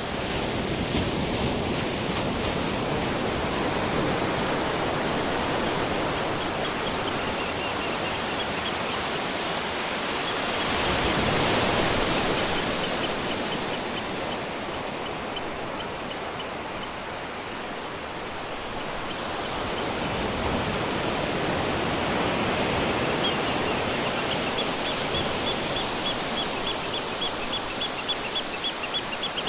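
Ocean surf washing continuously, swelling louder twice as waves break in. A faint series of rapid high chirps runs over it at times, most of all near the end.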